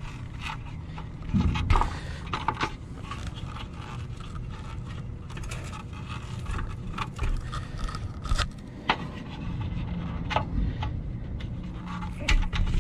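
Plastic scraping, clicking and knocking as the blue plastic housing of a Carrier EcoBlue fan assembly is pushed and worked off its fan wheel by hand, with the loudest knocks about one and a half seconds in. A steady low hum runs underneath.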